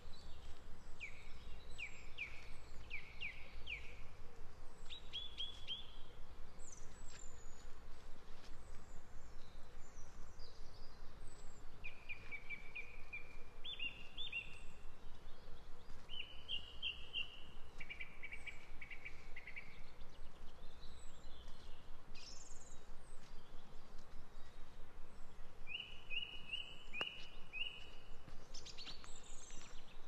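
Woodland songbirds singing: short phrases of quick, sharp notes repeated every few seconds, with thinner high calls in between, over a steady low rumble.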